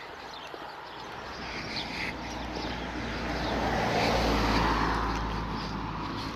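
A car driving past on the street, its engine hum and tyre noise building to a peak about four seconds in and then fading away.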